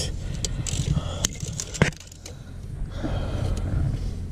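DeWalt 25-foot tape measure being handled, its steel blade pulled out of the case with scattered clicks and scrapes. The sharpest click comes just under two seconds in.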